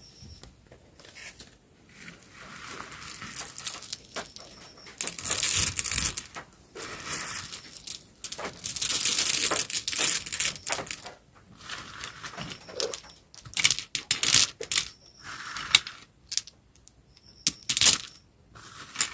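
Candy packaging crinkling and tearing in irregular bursts, with scattered sharp clicks and taps between them.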